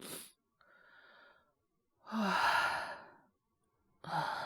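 Voice-acted breathing and sighs: a quick breath in at the start, a soft breath out, then a long, louder sigh about two seconds in, and another breath beginning near the end.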